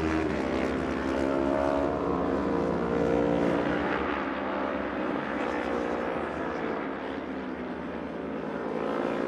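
Racing engines running at high revs, their pitch slowly rising and falling as vehicles pass and change speed.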